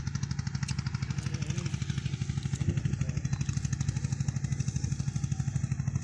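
A small engine running steadily, with a fast, even low thudding that does not change.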